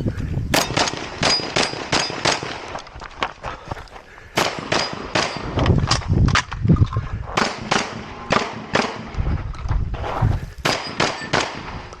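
A competitor's firearm firing a rapid course of fire, several gunshots a second. The shooting pauses briefly about three seconds in, then goes on in quick strings to near the end.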